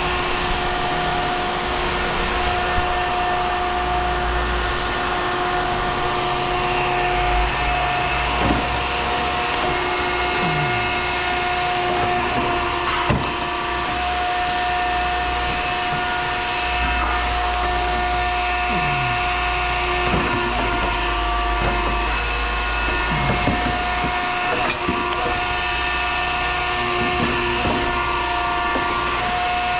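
Steady mechanical whine of a scrap-metal shear's hydraulic power unit running, with a few short clanks and knocks from the metal being handled and cut.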